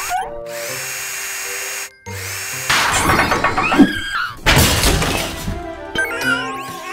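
Cartoon background music with workshop repair sound effects on top: a whoosh at the start, a stretch of hissing, then a busy run of clattering and whirring tool noises.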